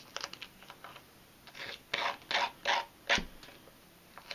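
Small hand file scraping in short, uneven strokes along the edge of a wooden fingerboard deck, trimming away the overhanging paper graphic. The strokes get louder in the second half, and a sharp click sounds just after three seconds.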